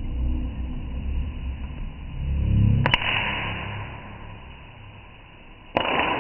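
Popcorn kernels popping in a stainless steel kadai: two sharp pops, one about three seconds in and one near the end, each followed by a brief hiss. A low rumble runs before the first pop.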